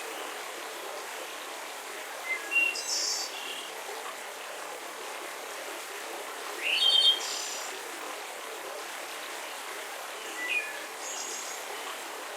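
Wild birds singing short chirping phrases three times, over a steady, even background hiss of forest ambience.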